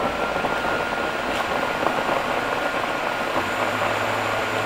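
Optimum G2.3 induction-motor high-speed blender running its smoothie preset, blending frozen mango, spinach and coconut water. It is a steady even whir with a thin steady whine over it, and a low hum comes in about three and a half seconds in. For a high-speed blender it runs much quieter than most.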